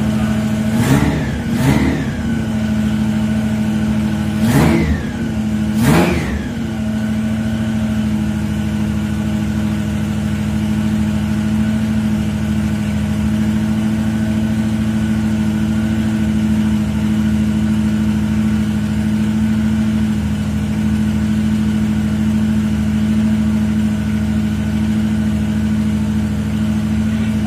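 1969 Dodge Charger's Roots-supercharged, carburetted engine revved in four quick blips, in two pairs over the first six seconds, then idling steadily. It is running with every carburettor idle screw just turned a quarter turn richer to improve the idle air-fuel ratio.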